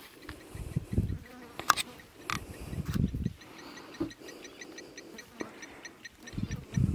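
An insect calling with a rhythmic high chirp, about four to five chirps a second, starting about three and a half seconds in. Low muffled rumbles come and go three times, and there are a couple of short clicks.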